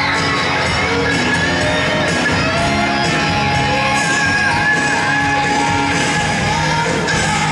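Rock song played by a band with electric guitars and drums, with a singing voice and some shouts from the audience.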